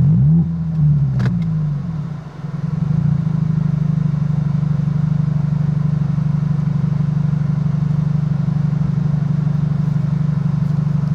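A car's engine and road noise heard from inside the cabin: the engine's pitch dips and rises during the first two seconds, then settles into a loud, steady drone.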